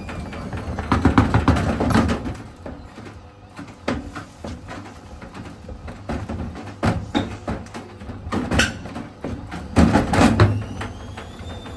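Elin washing machine drum spinning with irregular loud bangs and rattles, heaviest about a second in and again near the end. A faint motor whine slides in pitch underneath.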